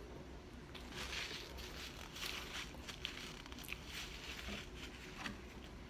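Faint chewing of crunchy fried food, with soft crackles and small clicks that come and go.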